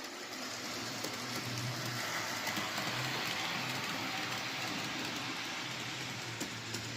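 HO scale model train running on the layout's track: a steady motor hum and the rumble of wheels on the rails, with a few light clicks near the end.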